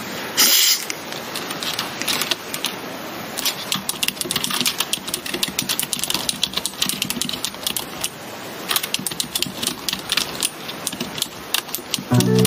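Fast typing on a computer keyboard: a dense, continuous run of key clicks, with a louder clatter about half a second in. Music comes in near the end.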